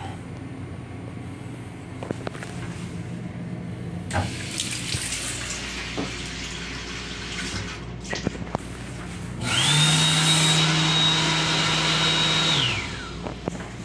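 M7 railcar lavatory sink: the faucet runs a thin stream of water for a few seconds, then about nine seconds in the built-in hand dryer starts with a rising whine, runs steadily for about three seconds, and winds down with a falling pitch. A low rumble from the moving train lies underneath.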